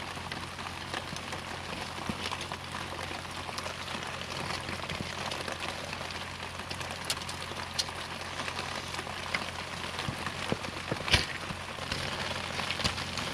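Steady heavy rain falling, a continuous hiss with patter. Scattered clicks come from camping gear being handled, and a sharp knock about eleven seconds in is the loudest sound.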